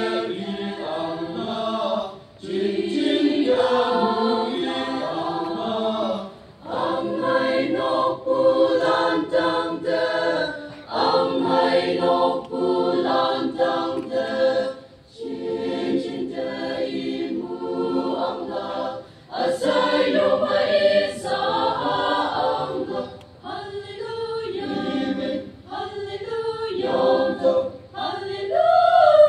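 A choir singing in phrases of a few seconds each, with short breaks between them.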